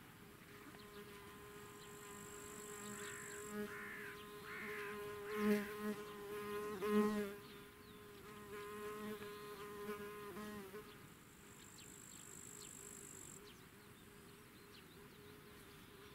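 A flying insect buzzing close to the microphone. The hum swells louder twice around the middle and then drops away about ten seconds in. A thin, high insect trill sounds twice, for a couple of seconds each time.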